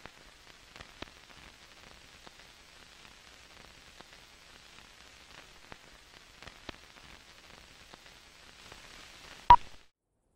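Old-film crackle and hiss with scattered clicks and pops, ending in one short loud beep near the end, the countdown leader's 1 kHz sync pop, after which the sound cuts off suddenly.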